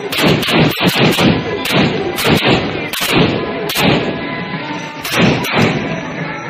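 Firecrackers bursting in a rapid, irregular volley of loud bangs, several a second, thinning out near the end.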